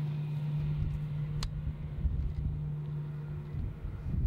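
Airbus A320 on final approach: a low engine rumble with a steady hum that stops about three and a half seconds in, leaving gusty wind on the microphone. A single sharp click about a second and a half in.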